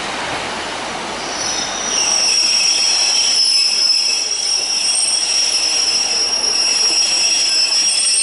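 Steel wheels of a departing Transport for Wales diesel multiple unit squealing on curved track. A steady, high-pitched multi-tone squeal sets in about two seconds in and holds over the rumble of the train.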